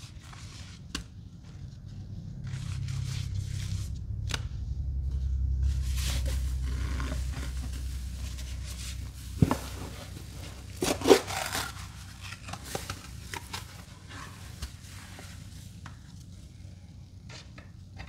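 Scraping and crinkling handling sounds as Comet cleanser powder is added to paste-covered sponges. A low rumble swells through the first half, and a few sharp clicks come a little past the middle.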